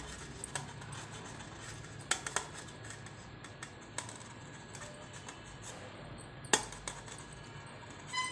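Cheese being grated by hand on a metal grater: faint scraping with scattered clicks and taps, the loudest about six and a half seconds in, and a short metallic ring at the very end.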